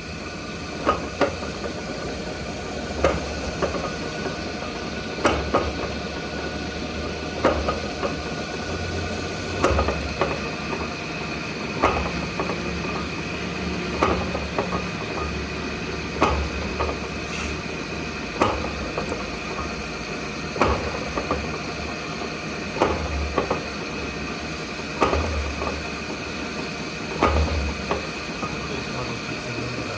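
Sharp knocks on metal about every two seconds, sometimes in quick pairs, over a steady machine hum with a constant high whine.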